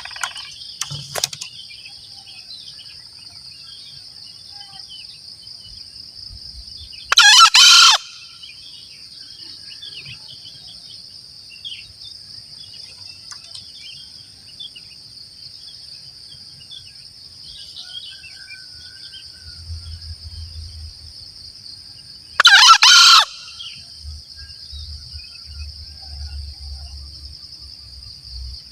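Green junglefowl crowing twice, about fifteen seconds apart, each crow a short call under a second long, over a steady high-pitched drone of insects.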